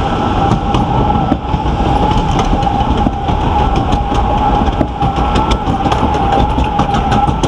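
Log flume lift-hill conveyor belt and its side drive chains hauling the boat uphill: a steady mechanical clatter and rumble with a constant whine and many small rapid clicks.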